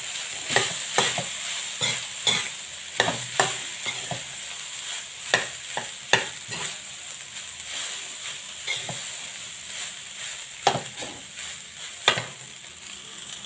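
Fried rice sizzling in a metal wok while a metal spatula stirs and turns it, scraping and knocking against the pan at irregular intervals over a steady frying hiss.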